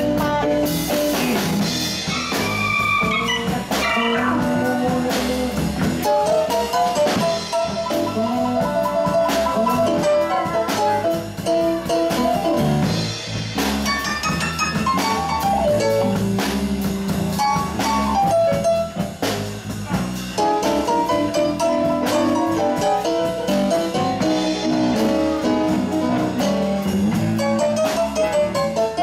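Live band playing an instrumental passage with no vocals: drum kit keeping a steady beat under electric guitar, electric bass and keyboard, with a melodic lead line weaving above.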